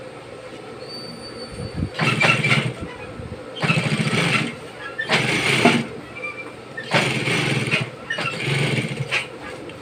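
Juki industrial sewing machine stitching through heavy fabric in five short runs of about a second each, the motor speeding up and stopping between them.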